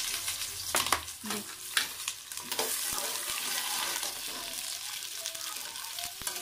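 Sliced onions sizzling in hot oil in a steel pot, just tipped in for a tadka. A metal ladle clinks and scrapes against the pot as they are stirred, with several sharp clicks in the first few seconds.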